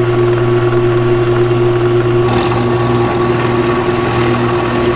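WEN 4214T 12-inch variable-speed drill press running with a steady hum; about two seconds in, the hiss of the bit cutting into a block of wood joins it.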